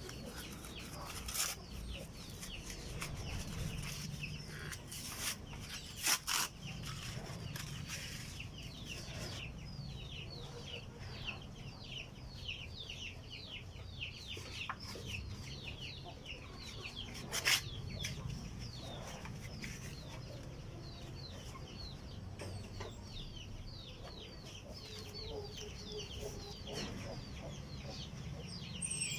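Chickens peeping and clucking: a long run of quick, high, downward-sliding peeps, with a few sharp clicks or knocks scattered through.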